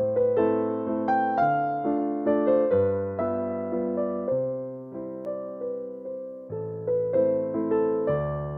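Background music: an electric piano playing a slow, gentle tune, each note struck and fading.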